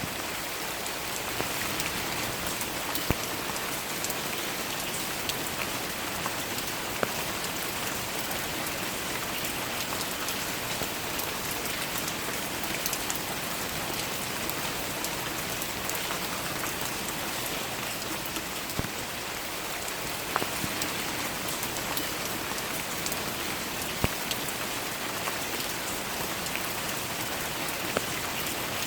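Steady rain falling, an even hiss with scattered sharp, close drops landing now and then.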